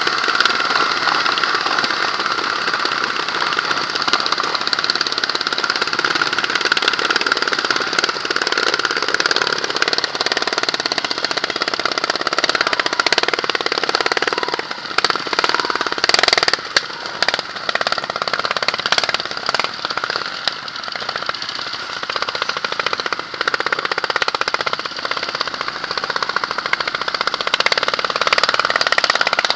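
Trial motorcycle engines running at low speed, chugging and pulling as the bikes ride a narrow forest trail, with the rider's own bike loudest. A few short knocks come about halfway through.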